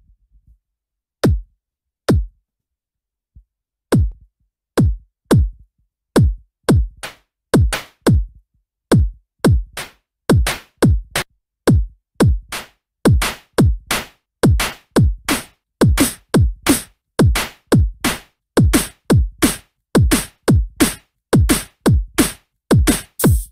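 Beatboxed kick drums looped and processed on a loop station: each hit sweeps down in pitch. The hits start sparse and build into a steady beat that grows denser, with a hissy cymbal-like layer coming in near the end.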